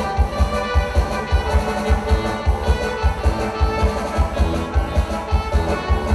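Mexican regional dance music with a steady thumping bass beat, played for couples dancing.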